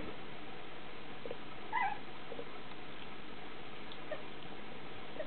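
Puppies squabbling at play: one short, high puppy squeak about two seconds in, with a few fainter squeaks and small scuffles around it.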